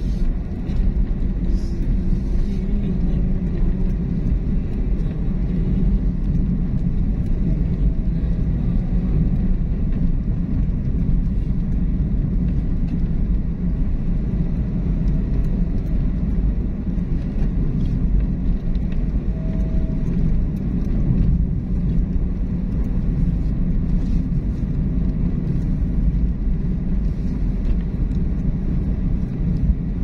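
A car driving along, with a steady low rumble of engine and road noise.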